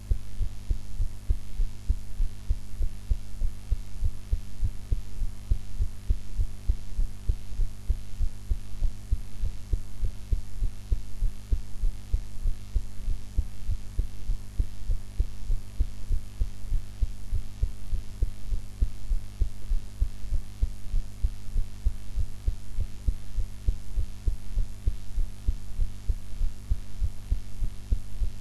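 A woman's heart beating at a steady, even rate, heard as regular low thumps with a constant low hum underneath.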